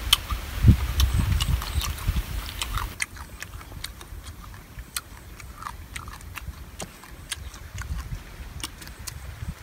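Close-up eating sounds of a crab: chewing and crunching for about the first three seconds, then quieter, scattered sharp clicks and cracks as pieces of crab shell are picked apart by hand.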